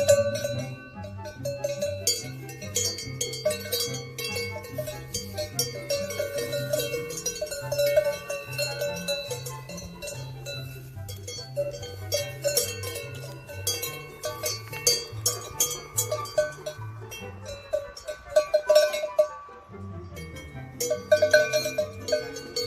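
Bells clanking and ringing over background music with a steady two-note bass line.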